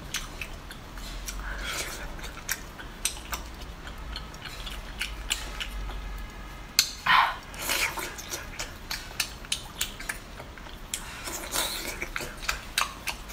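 Close-up mukbang eating sounds: spicy sea snail shells clicking against each other and against a scallop shell in gloved hands, with wet lip smacks and chewing, and two louder slurps about seven seconds in as a snail is sucked from its shell.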